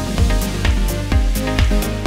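Background electronic dance music with a steady kick-drum beat of about two beats a second, crisp hi-hats and sustained synth notes.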